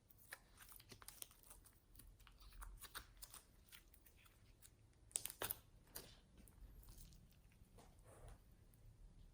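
Slime being squeezed and kneaded by hand, making quiet sticky clicks and crackling pops, with a louder cluster of pops a little past five seconds in.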